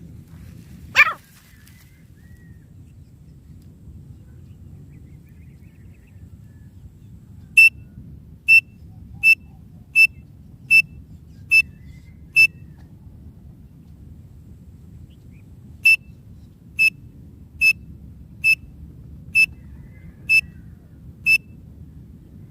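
Francolin (teetar) call: one loud harsh note about a second in, then two runs of seven short, shrill, evenly spaced notes each, a little under a second apart, with a pause of a few seconds between the runs. A low steady rumble runs underneath.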